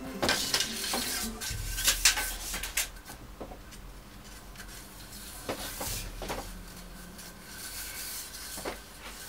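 Metal Venetian blind slats being slid out through the ladder cords: rubbing and scraping with light clinks, busiest in the first three seconds, then a few single clicks.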